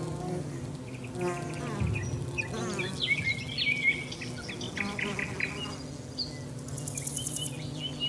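A buzzing insect's steady drone, with birds chirping and trilling in short calls throughout.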